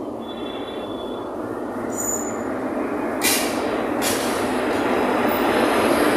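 WDM3A diesel-electric locomotive pulling a passenger train into the platform. The rumble of the engine and wheels grows steadily louder as it passes close by, with a few brief high wheel squeals.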